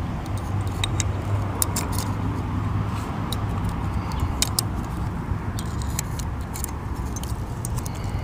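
Small metal parts of a gate lock cylinder clicking and tapping as they are worked by hand: scattered light clicks, several a second at times, over a steady low rumble.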